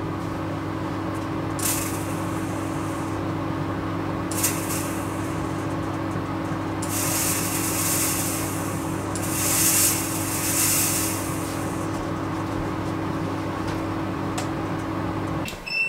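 Record Power AC400 air filtration unit's fan running steadily on speed 3 with a low hum. Over it a fog machine sprays in hissing bursts, the longest in the middle. The hum cuts off shortly before the end.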